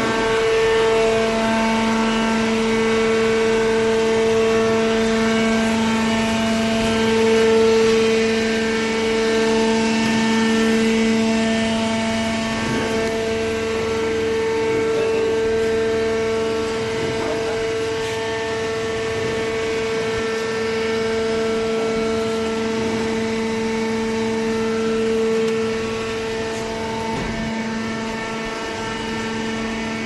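Hydraulic cardboard baler's electric motor and hydraulic pump running, a steady pitched hum with overtones.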